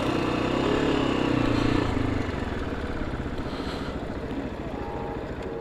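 Motorcycle engine running while riding, with road and wind noise. The engine note is steady for about two seconds, then eases off and the overall sound slowly fades.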